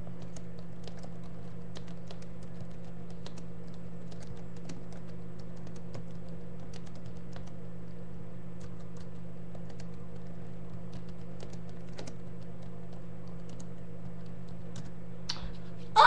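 Irregular key clicks of someone typing on a computer keyboard, over a steady low hum. Near the end, a loud yell with a falling pitch cuts in.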